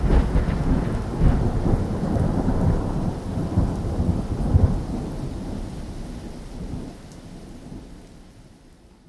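Thunder with rain: a deep rumble, loud at first and swelling a couple of times, then fading away over several seconds.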